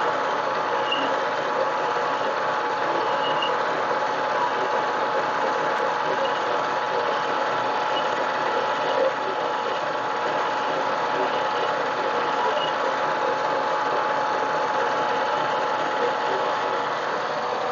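Harbor Freight mini lathe running steadily, its motor and gear train giving a constant whine with one steady tone.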